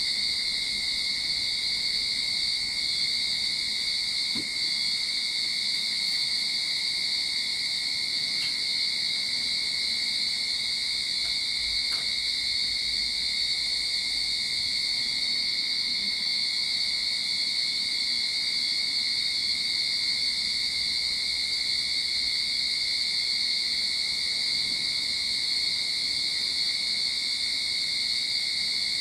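Cicadas calling in a continuous, steady high-pitched drone that holds one even level throughout, without pauses.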